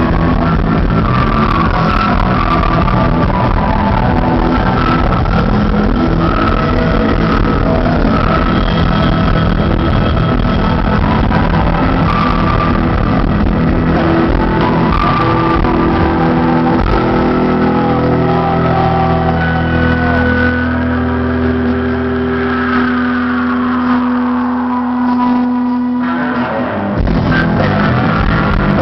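Rock band playing live with electric guitars, loud in the audience's recording. Past the middle, the playing thins to long held, ringing notes, one sliding slowly down, and the full band comes back in near the end.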